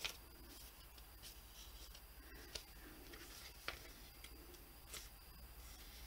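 Near silence with faint handling of a paper coloring book: fingers rubbing on the pages and a few small ticks.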